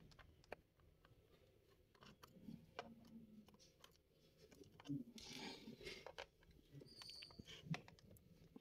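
Faint small clicks and a short rustle of screws being taken out of a Lenovo 300e Chromebook's bottom case with a small screwdriver.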